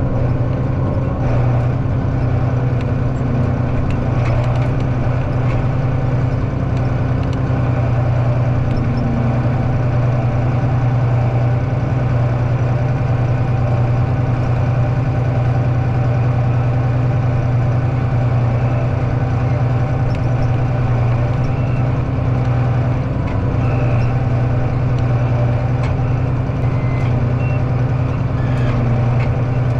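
Engine of a farm machine running steadily with an even low drone while leveling out muddy ruts.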